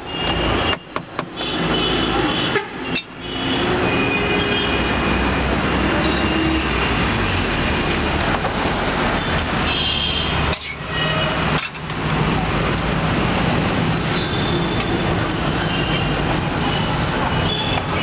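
Busy roadside street noise: traffic running steadily with horn toots and voices mixed in. The sound drops out briefly about a second in, around three seconds in, and again around eleven seconds in.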